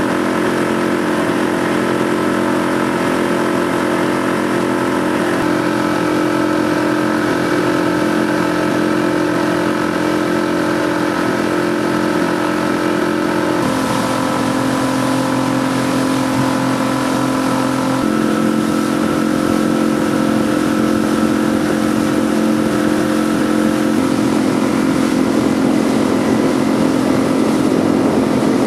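Outboard motorboat engines running steadily at cruising speed, with the rush of water from the wake. About 14 seconds in, and again about 18 seconds in, the engine note jumps abruptly to a different steady pitch.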